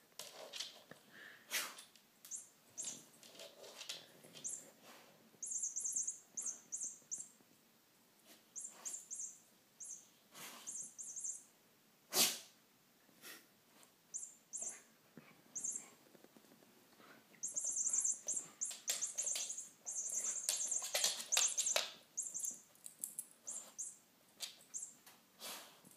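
A dog nosing and batting a cat's lattice ball toy across a rug and wood floor, the ball rattling in short irregular bursts among clicks and knocks. One sharp knock about twelve seconds in.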